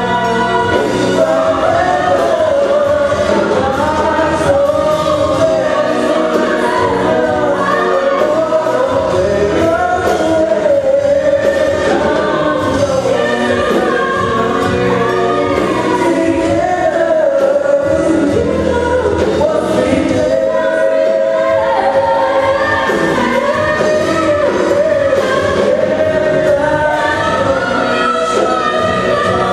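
Live stage performance: loud, steady music with singing throughout.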